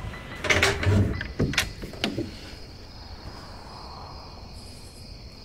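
A wooden plank door being handled and pushed open, with a short run of knocks and scrapes in the first two seconds. A faint steady high hum follows.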